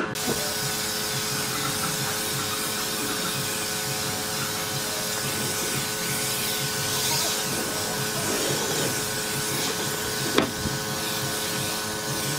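Spray gun hissing steadily as it sprays finish onto a pine bench, over a steady electric motor hum. There is a single sharp click about ten seconds in.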